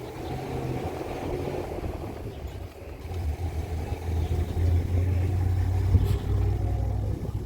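A gust of strong wind buffeting the microphone as a low rumble, swelling about halfway through and staying loud until near the end.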